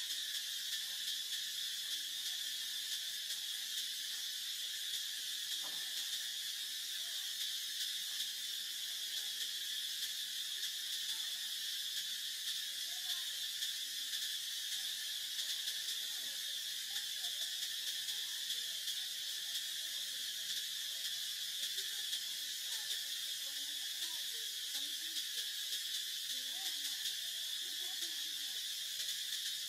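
A steady chorus of insects: one continuous high-pitched drone that never breaks or changes.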